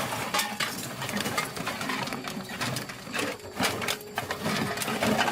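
Irregular clattering and knocking of hard objects being handled, many short sharp knocks close together.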